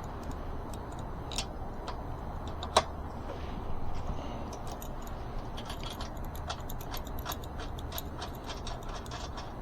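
Small metallic clicks and clinks of tools and bike parts being handled, with one sharper, ringing clink about three seconds in, over a low steady background hum.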